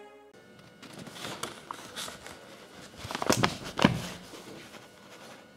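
Background music cuts off right at the start, followed by faint handling noise: scattered rustles and knocks, loudest in a short cluster about three to four seconds in.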